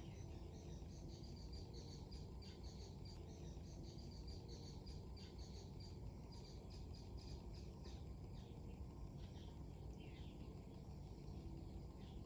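Faint steady low rumble of strong wind, with many short, high chirps scattered throughout.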